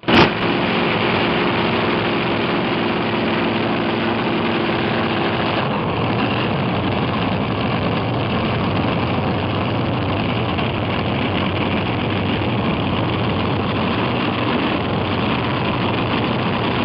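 A pulling tractor's engine running loud and steady, with a steady pitched tone over it for the first five or six seconds, after which the sound changes slightly.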